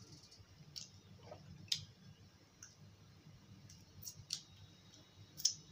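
Faint wet mouth clicks and lip smacks from chewing, six or so short sharp ticks at irregular spacing, the loudest near the end, over a faint low hum.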